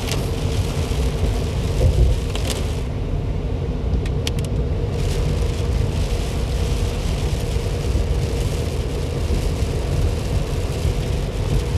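Steady low rumble and hiss of a moving car heard from inside its cabin, with tyre and engine noise on a rain-soaked road. The high hiss drops away briefly about three seconds in and returns about two seconds later, and a few light clicks sound around then.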